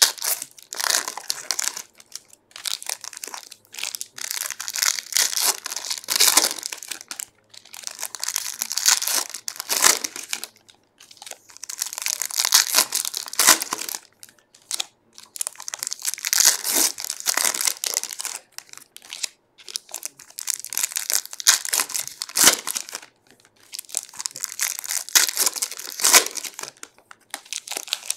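Foil baseball-card pack wrappers being torn open and crinkled by hand, in repeated bursts of crackling with short pauses between.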